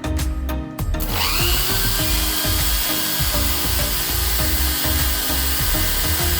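A small power tool motor spins up about a second in and then runs steadily, over background music.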